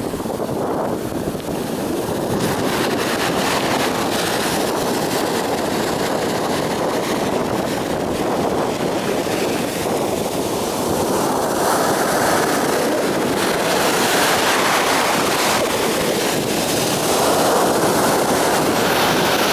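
Rough sea surf breaking and washing along the shore, a continuous rushing noise that swells louder in the second half, with wind buffeting the microphone.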